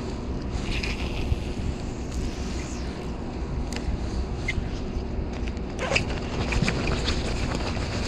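Steady low rumble of wind on the microphone, with rain-jacket fabric rustling against it, and a run of small clicks and rattles from handling the fishing rod and spinning reel in the last couple of seconds.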